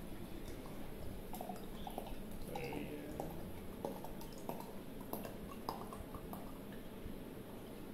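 White wine poured from a bottle into a stemmed wine glass, splashing and dripping in small scattered splashes as the glass fills.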